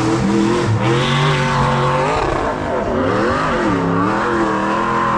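High-horsepower off-road hill-climb vehicle's engine revving hard. It holds a steady high pitch, drops and climbs again twice near the middle, then settles.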